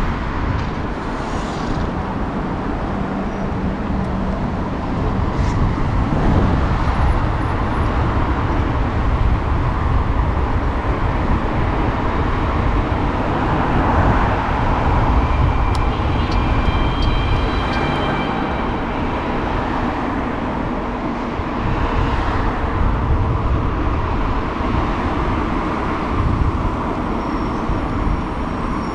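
Road traffic heard from a moving bike among cars: a steady wash of car engines and tyre noise. A faint high whine shows about halfway through.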